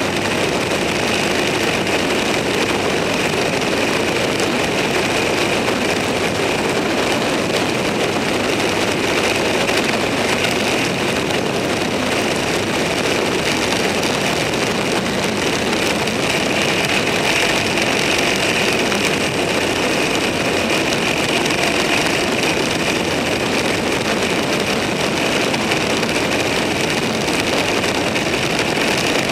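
A vehicle cruising steadily on the road: an even, unbroken mix of engine, road and wind noise.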